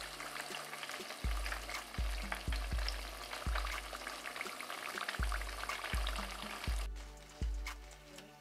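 Egg-roll-wrapped mozzarella sticks deep-frying in vegetable oil in a pot: a dense crackling sizzle that stops suddenly about seven seconds in. Background music with a deep bass beat runs underneath.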